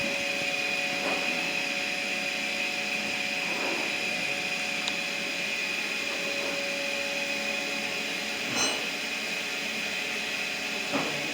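Steady hum and high whine of powered machinery, with a few faint knocks scattered through it.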